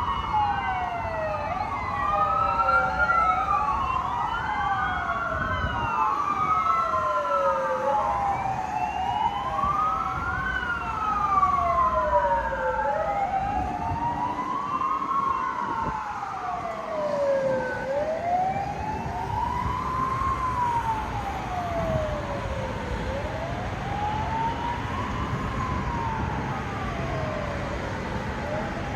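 Fire engine sirens wailing, each rising and falling slowly over a few seconds. Two or more sirens overlap out of step in the first half, then mostly one carries on, over a low engine and road rumble.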